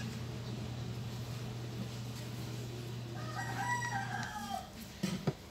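A rooster crowing once, a single drawn-out call about three seconds in that rises, holds and falls away. A steady low hum sits underneath until just after the crow, and there are a couple of small knocks near the end.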